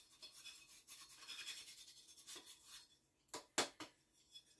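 Faint scratching and rubbing from hands and tools working a potted bonsai, then two sharp clicks about three and a half seconds in.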